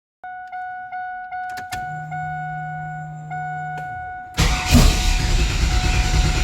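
Dashboard warning chimes ring, at first as quick dings about four a second and then as a near-steady tone, with a steady low hum joining under them. A little past the middle, the GM LT1 V8 is cranked for about two seconds without firing: a no-start.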